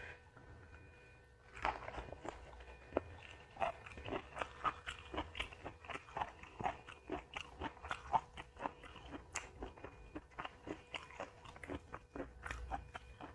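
Close-miked mouth sounds of a person eating: crisp crunching bites and chewing, starting a little under two seconds in and going on as a quick run of crunches, a few every second.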